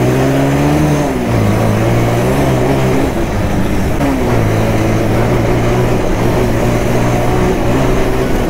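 Bajaj Pulsar 220F single-cylinder motorcycle engine pulling along a rough dirt road. Its note rises, drops about a second in, dips again around four seconds and then holds steady, over constant wind and road noise.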